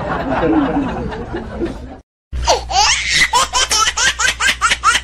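High-pitched laughter in quick, rhythmic bursts, about five a second, starting after a short break about two seconds in. Before the break there is a dense, noisy mix of sound.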